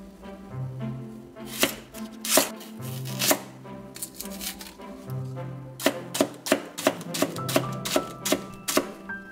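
Chef's knife chopping shallots on a wooden cutting board: scattered cuts at first, then a steady run of about three chops a second in the second half. Soft background music with a repeating bass note runs underneath.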